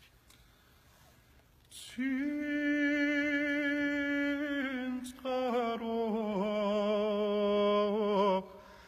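A Georgian men's vocal ensemble singing a cappella in close polyphony, starting about two seconds in: a steady low held note with several higher voices moving above it. The singing comes in two phrases, with a quick breath between them about five seconds in.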